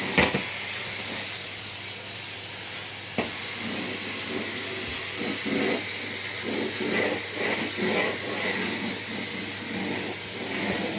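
Henry Hoover cylinder vacuum cleaner running steadily, a constant airy hiss over a low motor hum, with a single click about three seconds in.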